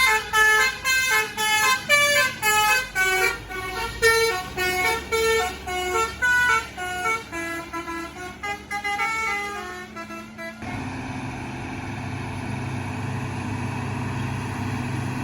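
A multi-tone musical air horn on a large vehicle plays a quick run of changing notes for about ten seconds, then stops abruptly. After it, a heavy vehicle's engine runs steadily.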